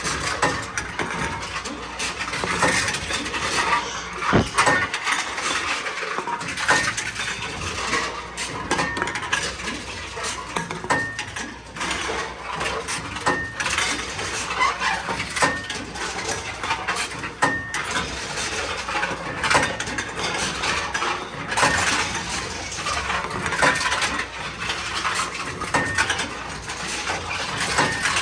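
Tomra reverse vending machine taking in empty aluminium cans one after another: continuous metallic clattering and crunching as the cans are conveyed and crushed, a little grindy. Short high beeps sound every couple of seconds through the middle.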